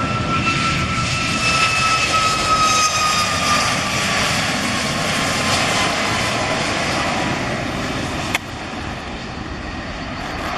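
Boeing 737 jet engine noise with a high fan whine that slowly falls in pitch over several seconds. About eight seconds in there is a sharp click, after which the sound is quieter.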